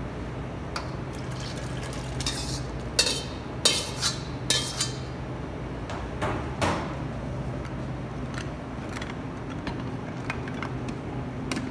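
Cooked vegetables and stock poured from a stainless-steel wok into a plastic blender jar, with clanks and scrapes of the metal wok and ladle. A cluster of sharp knocks comes about three to five seconds in, and another just after six seconds. A steady low hum runs underneath.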